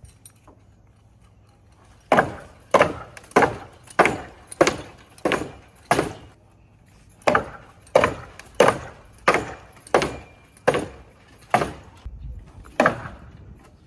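Salmon ladder being climbed: the bar is jumped up the ladder and knocks sharply into each rung, fifteen knocks in all at a steady pace of a little under two a second. They come in two runs of seven with a short pause between them, then one last knock near the end.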